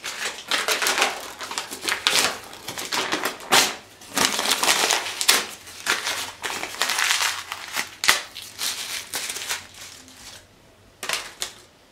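A sheet of paper being crumpled in the hand: a run of loud crinkling bursts for about ten seconds, then one short burst near the end.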